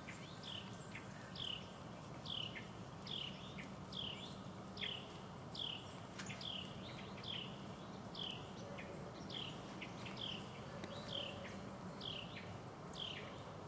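A bird calling repeatedly: a steady series of short, high notes that slide downward, about one a second, over a faint steady low background hum.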